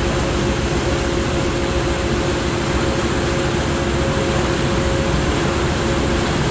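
A boat's engine running steadily under tow, a constant drone with two steady hum tones over a wide rushing noise of wind and water.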